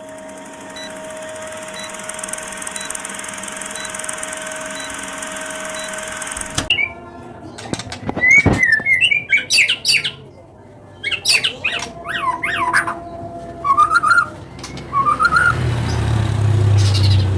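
White-rumped shama (murai batu) singing: loud, whistled phrases of fast rising and falling notes, starting about seven seconds in. Before that there is only a steady hiss with a faint hum and small regular beeps, and a low hum builds near the end.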